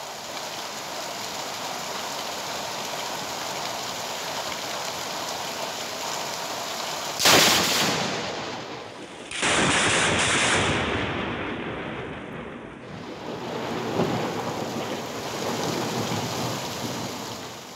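Heavy rain pouring steadily. About seven seconds in comes a sudden loud thunderclap from a lightning strike. A second loud burst of thunder follows about two seconds later and dies away over a few seconds, while the rain keeps falling.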